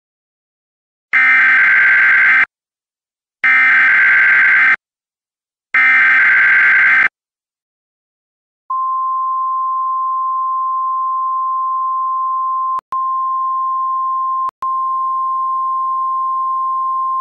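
Emergency Alert System header opening a severe thunderstorm warning: three harsh, buzzy data bursts about a second long each, then a long, steady single-pitch attention tone that starts about two seconds later and briefly drops out twice.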